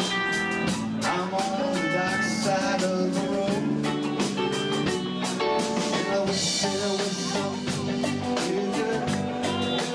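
Live rock band playing: a male singer over acoustic guitar, electric guitar and bass, with a steady drum beat.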